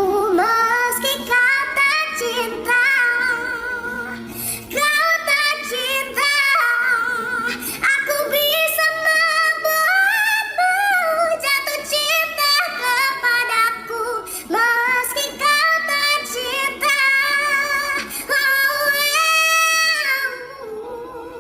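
A woman's singing voice, pitched up high by a voice effect, singing a melody in continuous phrases with wavering pitch and short breaks between them.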